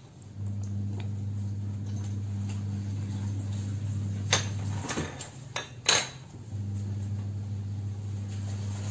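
Kitchen knife cutting sausage on a wooden chopping block: four sharp knocks of the blade on the wood, about four to six seconds in, over a steady low hum.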